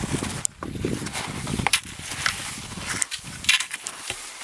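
Footsteps crunching through snow, with short crackles and rustles.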